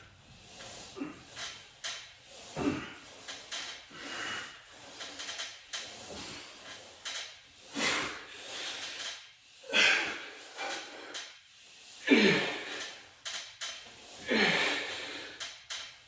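A man breathing hard through a set of lat pulldowns, forceful exhales about every two seconds that get louder as the set goes on. Quieter sliding and knocking from the cable machine come in between.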